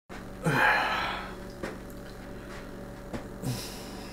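Room tone with a steady low electrical hum. A man makes two short breathy exhales, one near the start and a weaker one about three and a half seconds in, with a few light clicks between them.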